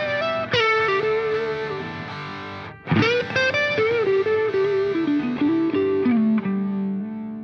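Background music led by a distorted electric guitar, playing a melody that steps down to a long held low note, which fades out near the end.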